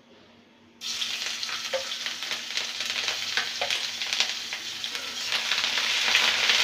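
Onion paste dropped into hot mustard oil in an aluminium kadai: a sudden sizzle starts about a second in and carries on as the paste fries, growing a little louder near the end as it is stirred.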